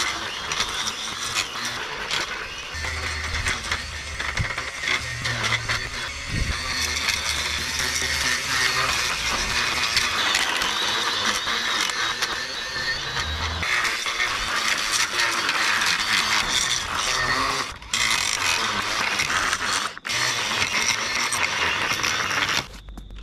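Battery-powered brushcutter with a metal grass-cutting blade running and cutting through overgrown roadside grass along a kerb. The sound is steady apart from two brief dropouts near the end.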